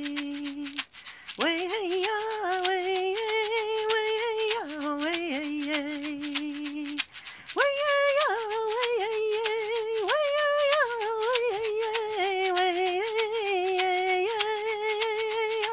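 A woman singing a slow, wordless melody of long held notes, breaking briefly for breath about a second in and again halfway through, while a hand rattle is shaken in a steady rhythm beneath it.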